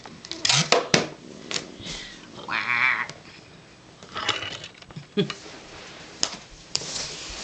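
Latex balloons being handled and blown: rubbery squeaks and rubbing with a few sharp clicks. About two and a half seconds in comes a short warbling squeal of air escaping through a stretched balloon neck.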